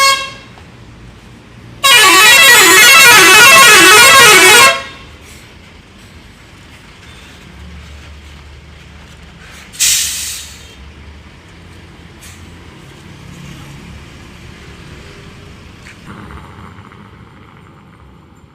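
Bus 'telolet' musical horn playing a loud warbling tune of several tones for about three seconds. About ten seconds in comes a short hissing burst, and low traffic rumble runs underneath.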